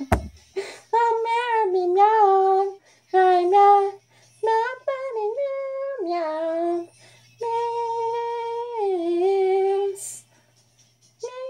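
A woman singing a song's melody in meows instead of words, in short held phrases with brief breaks between them. A short bump is heard right at the start.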